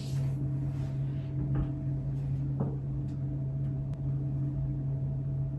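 Steady low electric hum, like a running fan or motor, with a few faint light taps partway through.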